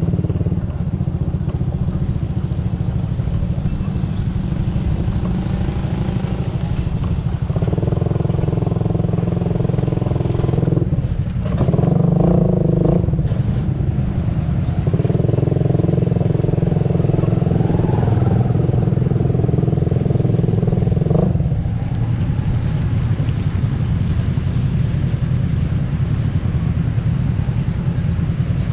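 Motorcycle engine running with a steady low rumble, and a higher engine drone joining in three stretches through the middle before fading back to the rumble.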